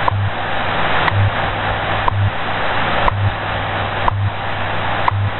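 Shortwave AM reception of the NIST time station WWV: a sharp clock tick once a second over steady static hiss. Underneath runs WWV's low 100 Hz time-code hum, broken into longer and shorter stretches each second.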